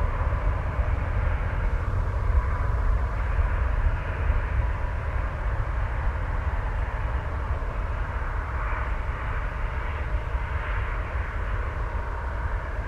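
Boeing 737's twin jet engines running at high power as it rolls away down the runway on its takeoff run: a deep, steady rumble with a faint whine, easing slightly near the end.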